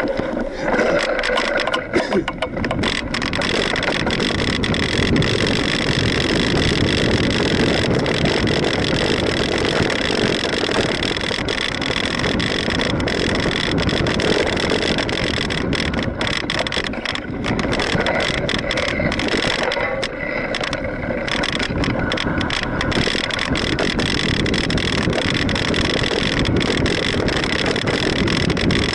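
Mountain bike riding over a dry dirt trail: steady wind noise on the microphone over tyre noise on dirt, with frequent rattles and knocks as the bike jolts over bumps.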